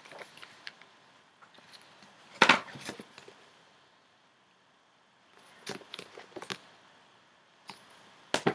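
Books being handled and taken out of a box: a sharp knock about two and a half seconds in, then scattered smaller knocks and rustles, with a quick pair of knocks near the end.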